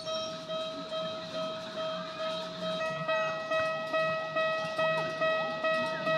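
Japanese railroad crossing alarm ringing its repeating electronic "kan-kan" bell, about two to three strikes a second. A second, higher tone joins about three seconds in.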